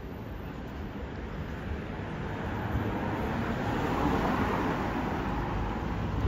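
Street traffic: a car drives past, its tyre and engine noise swelling to a peak about four seconds in and then easing off, over a steady low rumble of traffic.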